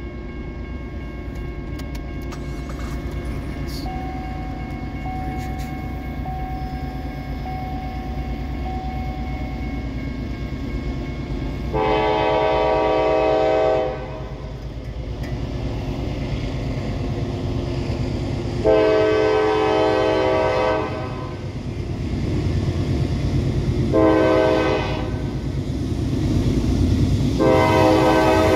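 Norfolk Southern diesel locomotive's air horn sounding the grade-crossing signal: two long blasts, a short one, then a long one that begins near the end. Under it the rumble of the approaching train grows steadily louder.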